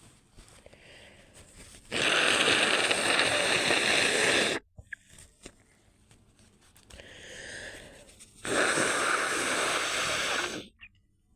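A person forcing air out hard: two long, loud breathy blasts of about two and a half seconds each, both cutting off abruptly, with a drawn breath before the second.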